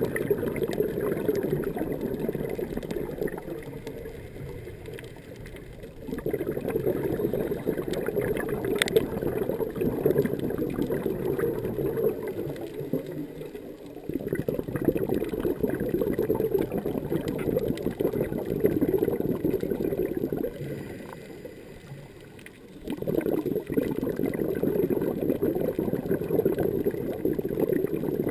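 Scuba diver's exhaled bubbles gurgling and rumbling past the underwater camera housing, in swells several seconds long with quieter breaks between breaths, four in all.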